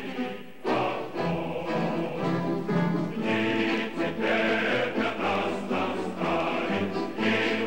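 Background music: a choir singing sustained chords over instrumental accompaniment.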